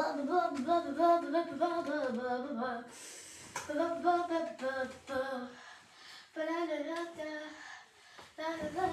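A young girl singing a tune to herself in short sung phrases with brief pauses between them. A soft rustle of the duvet she is handling comes in about three seconds in.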